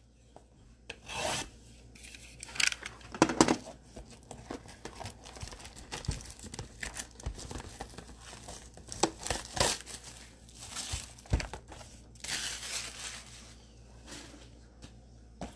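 A trading card mega box being unwrapped and opened by hand: the plastic wrap tears and crinkles and the cardboard rubs in irregular rustles and scrapes.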